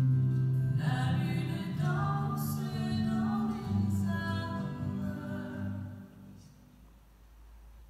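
A sung hymn with instrumental accompaniment: a voice singing over sustained low notes, fading out about six seconds in.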